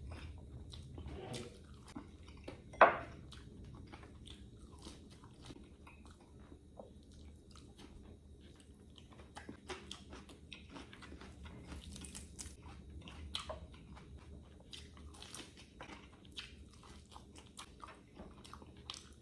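A person biting and chewing crunchy food close to the microphone: a run of crisp crunches and chewing clicks, with one much louder crunch about three seconds in.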